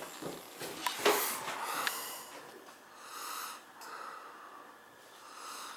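A man breathing heavily close to the microphone, several short hissy exhales, with a couple of light knocks from handling in the first two seconds.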